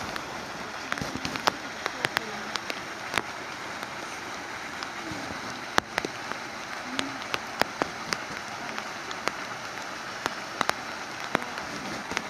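Steady rain falling, with many sharp clicks of raindrops landing close by at irregular intervals.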